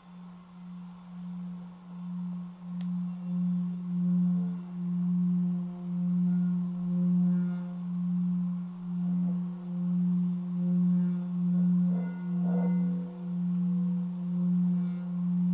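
Tibetan singing bowl resting on a person's chest, its rim rubbed with a padded mallet so that it sings: one low, steady tone that swells over the first few seconds and then holds, pulsing in slow waves.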